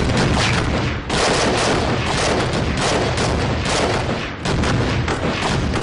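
Sustained gunfire: many rapid, overlapping shots with brief lulls about one second and four and a half seconds in.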